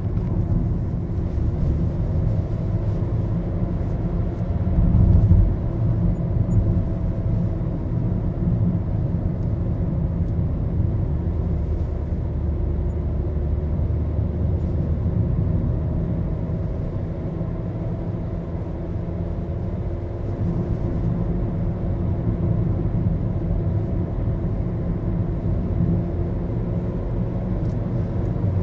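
Maruti Suzuki Baleno driving, heard from inside the cabin: a steady low rumble of engine and road noise whose engine note drifts slowly up and down, with a louder thump about five seconds in.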